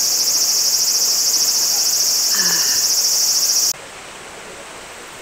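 Loud, steady, high-pitched chorus of summer insects that cuts off abruptly about three and a half seconds in, leaving a softer even hiss.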